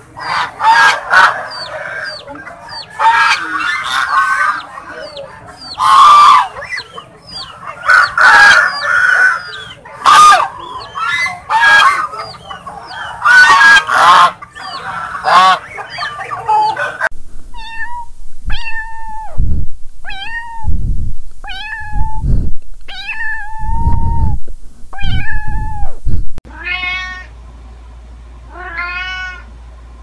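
A flock of greylag geese honking, many calls overlapping. After a sudden change there is a series of single drawn-out calls about a second apart. Near the end come two wavering kitten meows.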